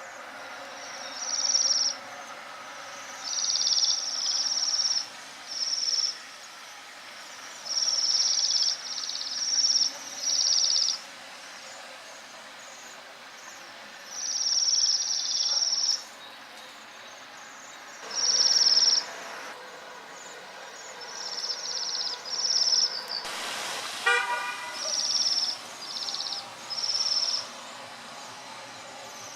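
A bird calling over and over in high, thin, buzzy calls, each lasting up to about a second, with short gaps between. A brief lower rattle comes about 24 seconds in.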